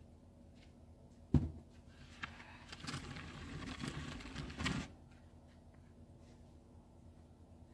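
A single sharp knock a little over a second in, then a snow shovel scraping and pushing snow across paving for about two and a half seconds, stopping suddenly.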